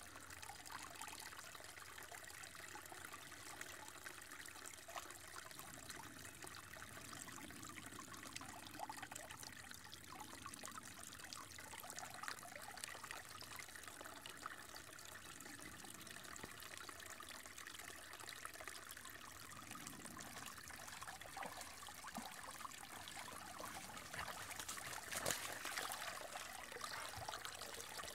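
Shallow woodland creek trickling, a faint steady water sound, with dogs wading through it and a brief louder splash near the end as they come close.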